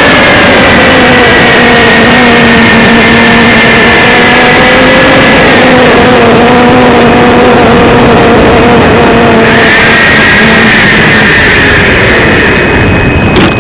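Onboard sound of a homemade radio-controlled model plane in flight: its motor and propeller run with a steady whine that sags slightly in pitch now and then, under loud wind rush on the microphone. A few knocks come right at the end.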